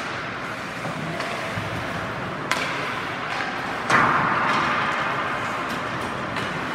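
Ice hockey arena sound of a game in play: skates on the ice and the echoing hall, with a few sharp clacks of sticks and puck. The loudest clack comes about four seconds in, followed by a hiss that fades.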